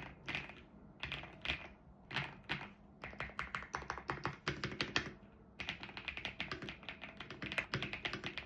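Aula F108 Pro full-size mechanical keyboard with Wind Spirit switches being typed on. A few separate keystrokes come first, then fast continuous typing from about three seconds in.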